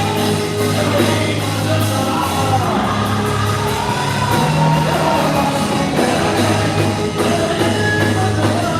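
Gospel praise music with singing over a steady band accompaniment and sustained bass notes.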